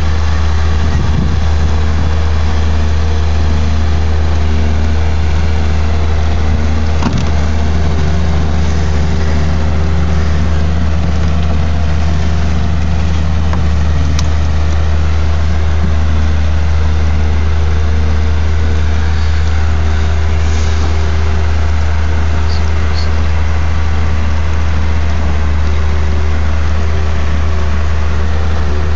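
Boat engine idling steadily with a low, even hum.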